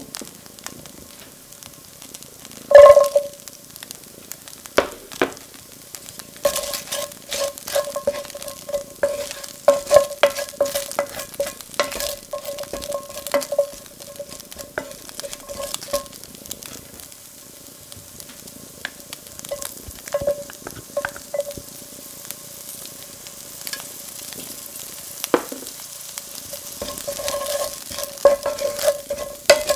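Wooden spatula scraping and knocking against a stainless steel sauté pan as sliced spring onions fry and sizzle in oil, the pan ringing with each stroke. A loud clang about three seconds in is the loudest sound.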